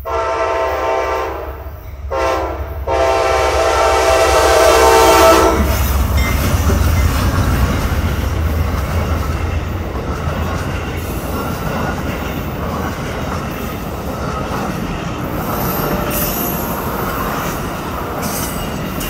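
Amtrak GE P42DC diesel locomotive's air horn sounding the close of a grade-crossing signal: a long blast, a short one and a long one, the last ending about five and a half seconds in. The passenger cars then roll past with a steady rumble and clatter of wheels on rail, and high wheel squeals come in near the end.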